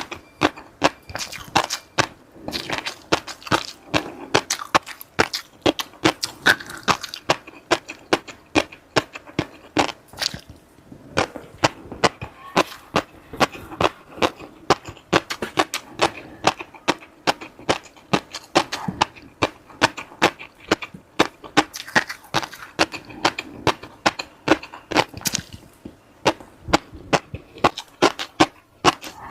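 Close-miked eating sounds: a person chewing, with rapid, irregular sharp crunches and mouth smacks, several a second.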